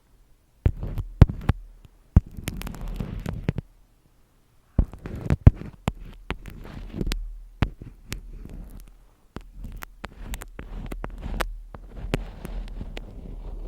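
Close-miked ASMR handling sounds: sharp taps and clicks mixed with scratchy rustling, coming in bursts with two brief silent gaps.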